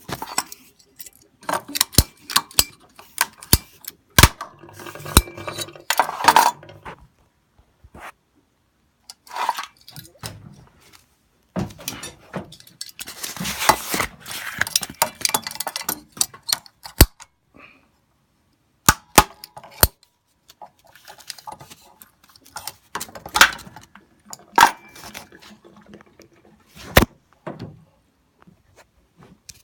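Hand tools working on a water heater's hard-piped water lines as they are cut and unscrewed: irregular metallic clinks, knocks and scraping, with sharp clicks scattered throughout.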